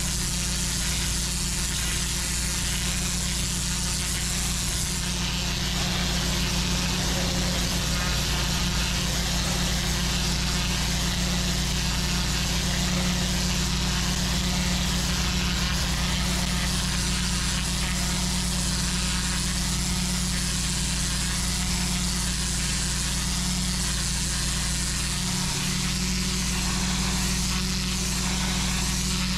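Pressure washer lance jet blasting moss and grime off block paving: a steady hiss of high-pressure water on the bricks over the constant hum of an engine.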